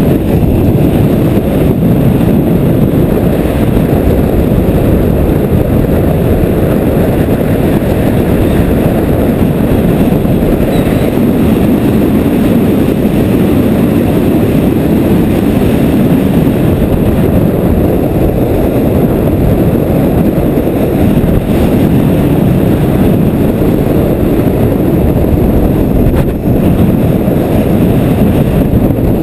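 Heavy wind buffeting the microphone at speed: a loud, steady low rush with no breaks.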